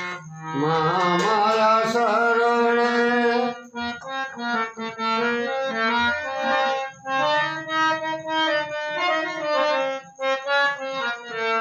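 Indian devotional music: a sliding, wavering melodic line for the first few seconds, then an instrumental melody of short stepped notes over a steady low drone.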